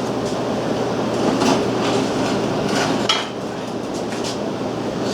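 Metal engine parts knocking and scraping as they are shifted and repositioned by hand, with a few sharper clanks, over a steady low hum.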